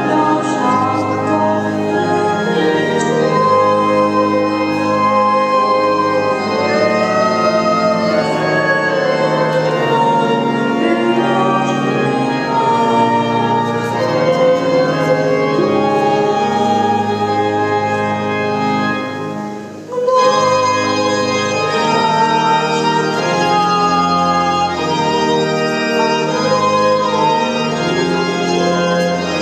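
Pipe organ playing sustained chords, breaking off briefly about twenty seconds in before a new chord comes in abruptly.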